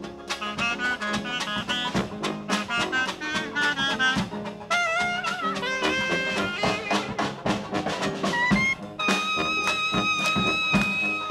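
A New Orleans traditional jazz band plays live, with clarinet, sousaphone, trombone, banjo and drums, over a steady beat. Quick runs of melody give way, about nine seconds in, to one long held high note.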